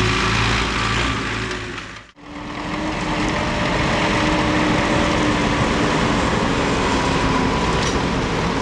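Combine harvester running steadily during wheat harvesting, engine and threshing machinery together. The sound dips out abruptly about two seconds in, then resumes as a similar steady machine noise.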